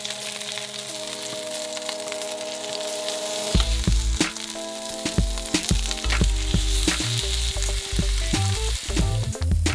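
Skin-on chicken breasts sizzling and crackling as they sear in their own rendered fat in a nonstick frying pan, turned over with a spatula. Background music runs underneath, with a bass beat coming in about three and a half seconds in.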